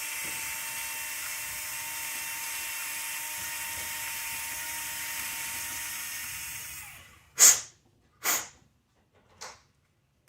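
Small power tool spinning a 3.5 mm carbide bit at a steady whine to ream out a tight hinge-pin hole in an RC buggy rear hub, then winding down about seven seconds in. Three sharp clicks follow, the first the loudest.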